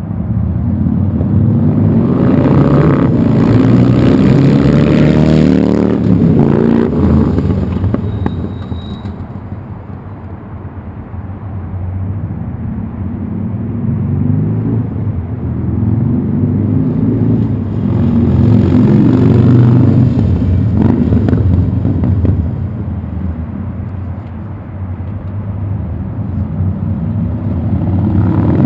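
Harley-Davidson Sportster V-twin running through a Firebrand 3-inch Loose Cannon slip-on exhaust with 2-inch perforated core baffles and dual-layer packing. The engine note swells and fades several times: loud in the first few seconds, easing off around ten seconds in, building again and easing off near the end before rising once more.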